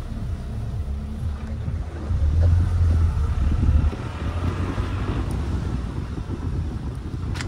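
Car driving over a rough dirt track: a low rumble of engine and tyres that swells about two seconds in, with wind buffeting the microphone. A sharp click near the end.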